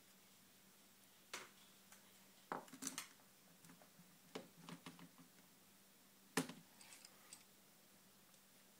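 Faint, scattered clicks and light taps of mini screwdrivers, screws and netbook plastic being handled while the screen bezel is reassembled, with the sharpest click about six seconds in.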